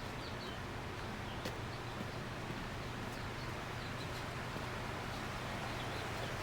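Steady rushing noise of a flowing creek, with faint bird chirps now and then and a few light clicks.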